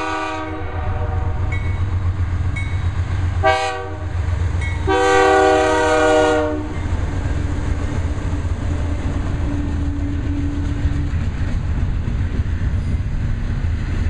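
BNSF GE Dash 9 diesel locomotives sounding the air horn as they pass: a blast that ends about half a second in, a short toot near four seconds, then a longer blast lasting about two seconds. Under it and afterward, a steady rumble from the engines and the double-stack container cars rolling by, with clickety-clack of wheels on rail joints.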